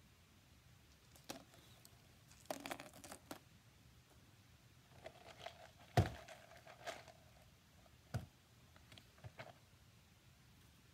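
Small stones and crystal points being handled and sorted: scattered rustling and clicks, with a sharp knock about six seconds in and a lighter one about two seconds later.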